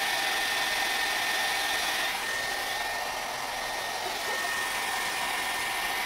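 Blow dryer running steadily, pushing hot air through a hose into a soft bonnet dryer cap: an even rush of air with a steady high whine.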